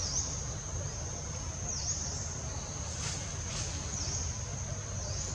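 Insects buzzing in a steady high-pitched drone that dips briefly in pitch a little under every two seconds, over a low outdoor rumble.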